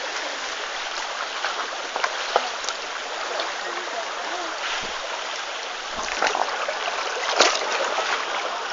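Mountain stream water rushing steadily, with a few scattered sharp knocks or splashes, the loudest about seven seconds in.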